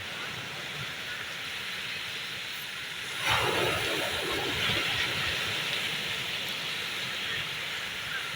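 Sea waves on a shore: a steady wash of surf, with a louder wave breaking about three seconds in and washing on for a couple of seconds.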